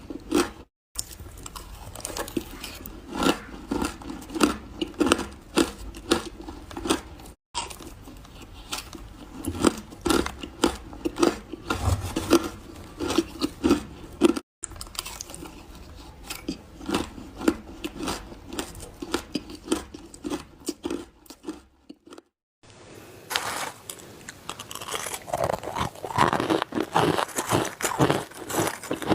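Ice being bitten and chewed close to the mouth: a steady run of loud, crisp crunches, several a second. Brief silent breaks fall a few times.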